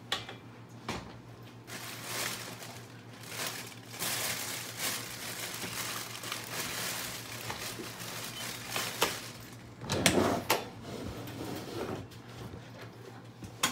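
A crisp potato-chip bag being crinkled and rustled for several seconds. About ten seconds in there is a louder clunk and knock.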